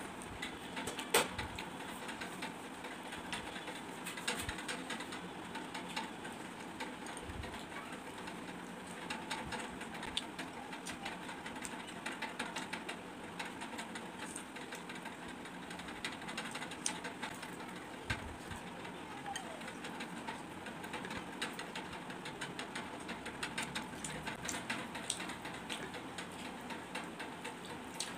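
Close-up eating sounds: a hand mixing and scooping watery fermented rice (panta bhat) in a glass bowl, with chewing and lip smacks making many small, irregular clicks over a steady background hiss.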